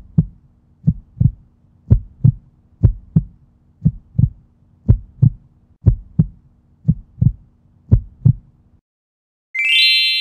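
Heartbeat sound effect: about nine paired low thumps, roughly one pair a second, over a faint low hum, stopping suddenly. After a short gap a bright chime sweeps up in quick steps and rings on.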